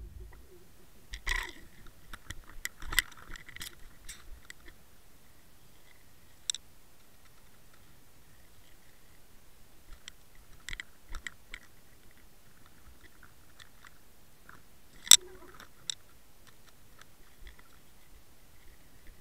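Scattered sharp clicks and taps picked up underwater through a camera's waterproof housing, over a faint steady hiss. There are a few quick groups of them, and the loudest is a single sharp click about fifteen seconds in.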